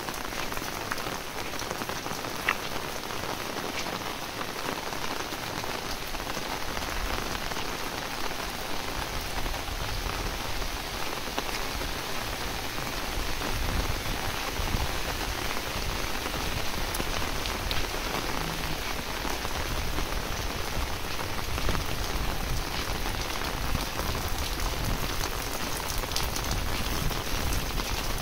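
Heavy rain falling steadily, an even hiss of countless drops. A low rumble underneath grows stronger after about ten seconds, and there is one sharp tick about two and a half seconds in.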